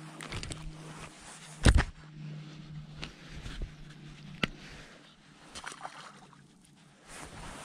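Knocks and clicks of handling on a bass boat's deck: one loud knock about two seconds in, then a few lighter clicks, over a steady low hum.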